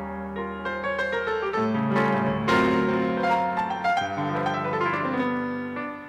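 Grand piano playing jazz: chords under a melody line, with a full, loud chord struck about two and a half seconds in.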